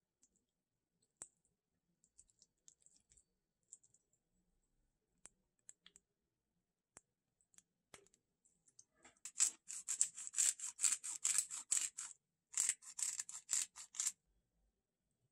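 Scattered faint clicks of a metal fork and spoon against a glass bowl. Then, just past halfway, a pepper grinder grinding in two runs of quick crunching strokes, about four or five a second, with a brief pause between them; these are the loudest sound.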